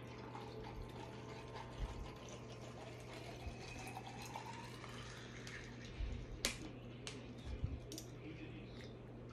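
Water being poured into a container of ice, the pitch rising as it fills, followed by a few sharp clicks and knocks of ice and the container.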